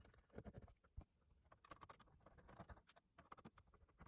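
Faint small clicks and scratches, near silence otherwise: a screwdriver working out the small screws that hold a cassette deck mechanism.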